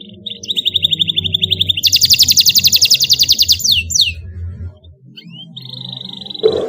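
Canary singing rapid trilled rolls: a steady trill, a faster, higher trill about two seconds in, then a few falling notes. After a short pause a new trill starts near the end, just after a sharp click.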